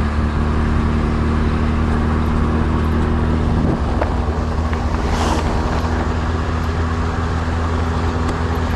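Car driving at a steady speed: a steady engine drone with road noise, and a brief hiss about five seconds in.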